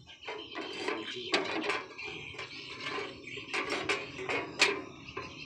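Sheet-metal parts of a coffee huller's fan and blower housing clinking and scraping as they are handled and fitted by hand, with several sharp metallic knocks, the loudest about four and a half seconds in.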